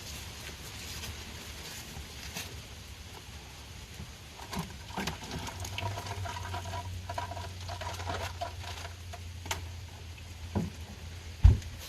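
Bonfire crackling and popping in the wind, with wind rumbling on the microphone and one loud low thump near the end.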